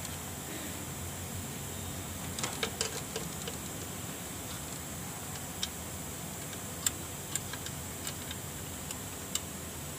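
Scattered light clicks and taps from hand work on parts in a car's engine bay, beside the radiator fan. A quick run of clicks comes about two and a half seconds in, then single clicks every second or so, over a steady hiss.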